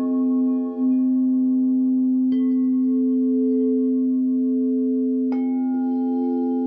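Quartz crystal singing bowls tuned to C, F and A at 432 Hz, ringing in long, overlapping tones with a slow wobble. A bowl is struck again about two seconds in and once more about five seconds in.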